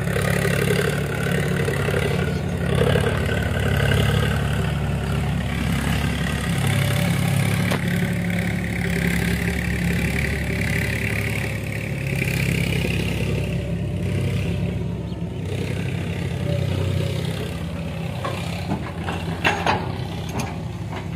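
Diesel engines running steadily: a Sonalika tractor idling while a Sumitomo hydraulic excavator works its arm and bucket alongside. A few sharp knocks near the end.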